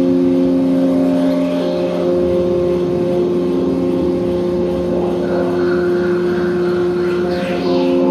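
Sound-art drone of several steady pitched tones held together, some dropping out and returning. A higher hiss comes in about five seconds in, with a brief sweep near the end.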